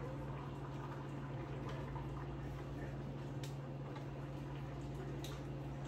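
A spoon stirring rice in a pot on the stove, with a couple of light clicks of the spoon against the pot, over a steady low hum.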